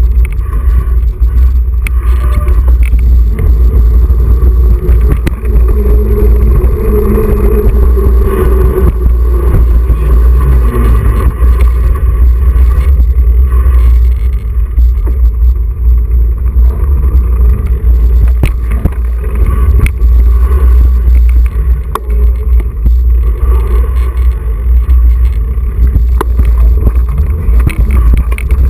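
Steady heavy rumble of wind and ride noise on an action camera carried on a moving mountain bike, with scattered knocks and rattles from the bike and tyres on the wet concrete.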